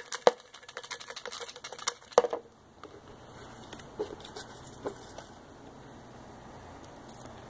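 Folded paper slips rattling and tapping against the sides of a clear plastic tub as it is shaken to mix them. There is a quick run of light clicks for about two and a half seconds, then only a few scattered taps and paper handling.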